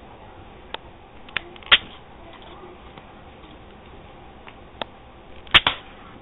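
A handful of sharp clicks and knocks against a faint steady hiss. There are three in the first two seconds and one faint one later, and the loudest is a quick double knock near the end.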